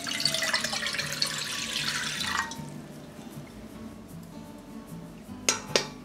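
Water poured into a cooking pot, splashing for about two and a half seconds and then stopping. Near the end come two sharp metal clinks as a stainless steel folding steamer basket is set into the pot.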